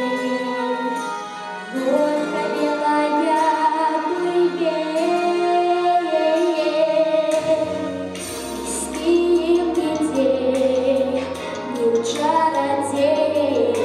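A boy sings a song into a microphone over a recorded backing track. Deep bass notes join the accompaniment about eight seconds in.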